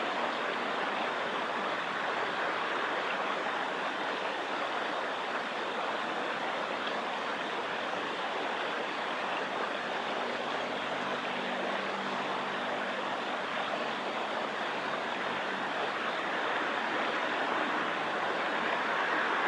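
Steady rushing of a small river's flowing water. A faint low hum joins it from about ten to fourteen seconds in.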